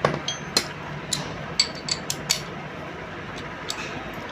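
Metal hand tools clicking and clinking against one another and the engine's metal parts: a run of sharp, uneven taps, some with a short ring, during work on the magneto.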